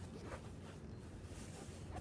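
Faint rustling and scraping of a soft fabric gun case as its top flap is lifted and folded open, over a low steady hum.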